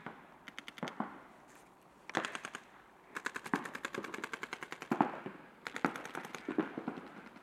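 Paintball markers firing rapid strings of shots, several bursts of quick popping with the longest lasting about a second and a half midway through.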